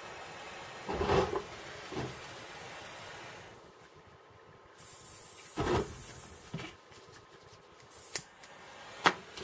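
Pen-style butane micro torch hissing with a small blue flame; the hiss drops out about three and a half seconds in and comes back about a second later. Dull knocks as the rusty steel machine-gun drum magazine is handled, and two sharp clicks near the end, the second the loudest.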